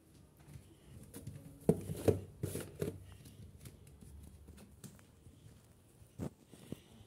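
Handling noise from a phone being moved around close to the microphone: scattered rustles and a few knocks, the loudest two sharp knocks about two seconds in, and another near the end.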